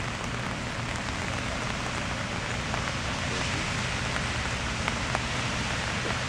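Steady rain falling, an even hiss with a few faint separate ticks of drops around the middle and near the end.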